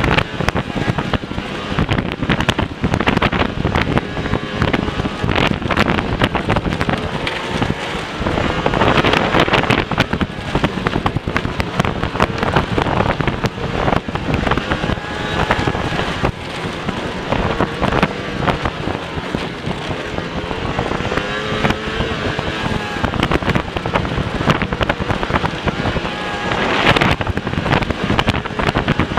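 Racing snowmobile engine running hard, its pitch rising and falling as the throttle changes, with constant knocking and clattering from the sled and track working over a bare, bumpy dirt trail with little snow. Wind buffets the helmet-mounted microphone.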